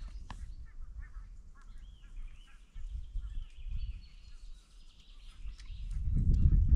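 Waterfowl calling in the distance, over a low rumbling noise that swells to its loudest near the end.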